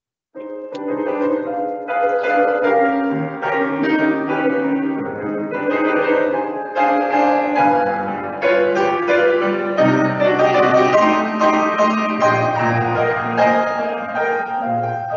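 Solo grand piano being played: full chords over sustained bass notes, starting just after the beginning.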